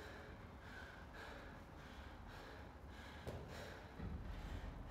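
A man panting hard and fast, about two to three breaths a second, recovering after an all-out workout. A single small knock about three seconds in.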